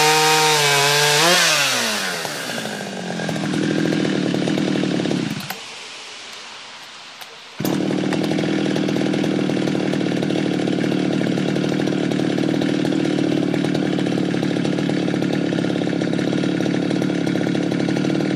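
Jonsered 630 two-stroke chainsaw at high revs, then let off the throttle so the revs fall away. About five seconds in it goes much quieter, and about two seconds later it comes back abruptly and runs steadily.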